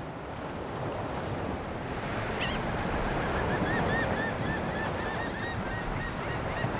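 Ocean surf washing steadily onto a beach, with a bird giving a quick run of repeated calls through the middle.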